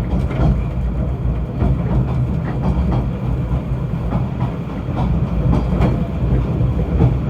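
Snowdon Mountain Railway rack train running, a steady low rumble with irregular knocks and clicks from the running gear on the track.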